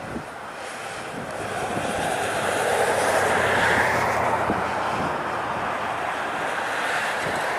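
Twin-engine jet airliner's engines on landing, a rushing roar that swells to its loudest about three to four seconds in and then holds.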